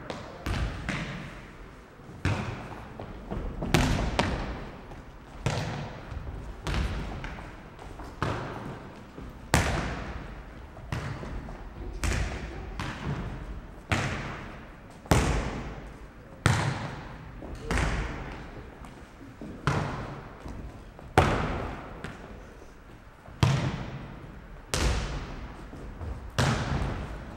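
Futnet ball struck by the players' feet and head and bouncing on a wooden sports-hall floor during a long rally: sharp thuds about once a second, each echoing in the hall.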